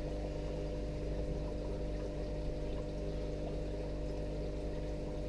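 Aquarium filter running: a constant low motor hum with water pouring and trickling over it.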